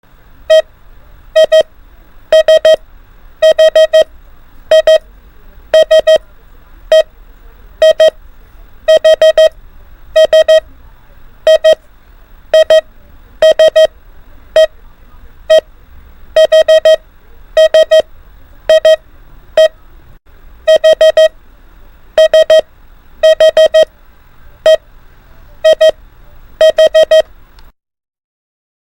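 Morse code (CW) practice tone keyed at 24 words per minute: a steady beep sent as quick clusters of dits and dahs, one letter about every second, over a faint low hum. The tone stops near the end.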